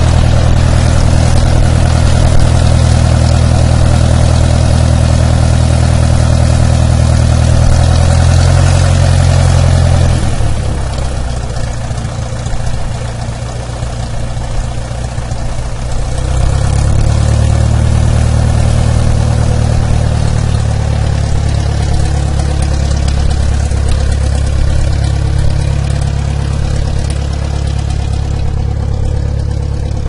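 Airplane engine running while the aircraft taxis: a steady low drone that eases off about ten seconds in and builds again about six seconds later.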